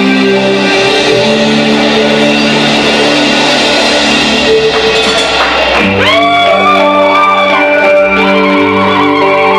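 Live 1980s hair-metal band playing an instrumental passage: electric guitars over drums and bass. About six seconds in, the guitar plays held notes that bend up in pitch.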